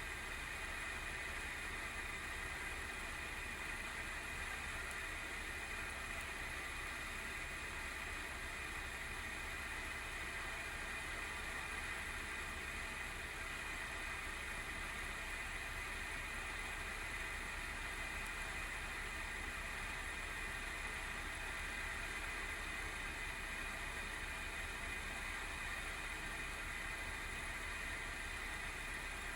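ASUS GeForce RTX 3060 Phoenix graphics card's single cooling fan running under benchmark load, a steady whirring with a high-pitched hum over it. It is the abnormal noise of a failing fan, which the owner puts down to either a wobbling shaft or dried-out lubricating oil.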